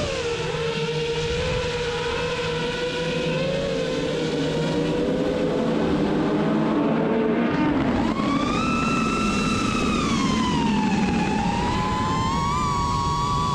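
FPV quadcopter's electric motors and propellers whining over a rushing haze, the pitch rising and falling with the throttle, with a sharp jump in pitch about eight seconds in.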